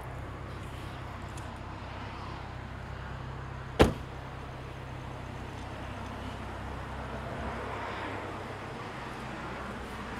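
Steady low road hum inside a moving vehicle's cabin, with one sharp click about four seconds in.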